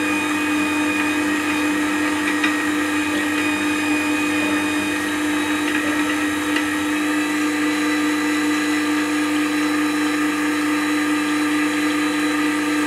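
Record Power WG250 wet-stone sharpener's motor running with a steady hum, turning the leather profile honing wheel as the inside of a spindle roughing gouge's flute is honed against it to clear the burr.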